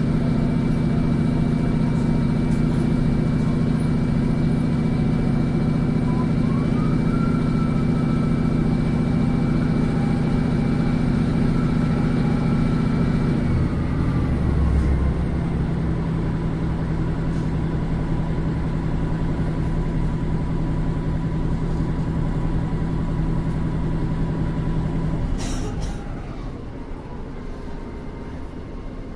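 A running train heard from inside the carriage: a steady low hum with faint higher whines. The hum changes about halfway through, and near the end a click is followed by a quieter, lighter rumble.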